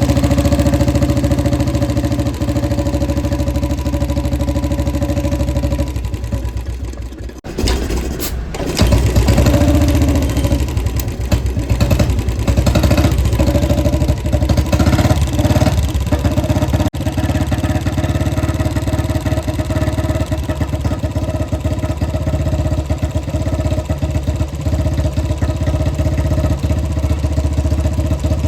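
Royal Enfield Bullet 350's single-cylinder engine running with its steady thump. It falls away briefly about a quarter of the way in, then picks up again.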